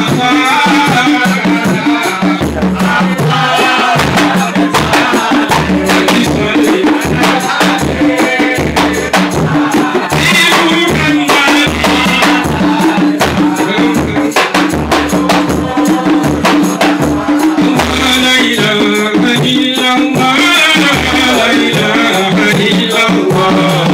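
Men playing large hand-beaten frame drums in a steady repeating rhythm, with a rattling jingle on top, while a lead singer chants into a microphone.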